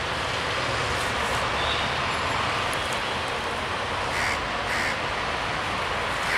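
Crows cawing, two caws about half a second apart some four seconds in, over a steady hiss and a low rumble.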